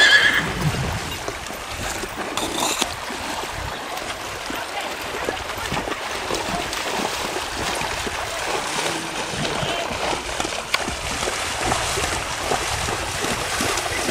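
Horses wading through shallow lake water, their legs splashing and sloshing steadily.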